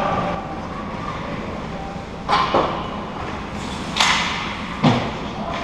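Ice hockey play on a rink: sharp knocks and cracks of sticks and puck against the ice and boards. Two come close together about two seconds in, a strong one at about four seconds, and a heavier thud near the end.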